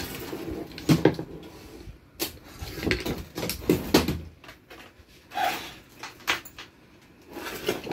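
Irregular knocks, bumps and rattles as an Onida LED TV is lifted, tilted and set down on a workbench, its frame and cables knocking against the bench and tools. The loudest knock comes about a second in.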